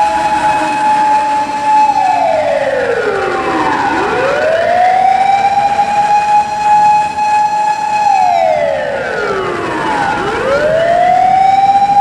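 Chinese ambulance siren wailing: the tone rises quickly, holds high for two to three seconds, then glides slowly down, and the cycle repeats twice.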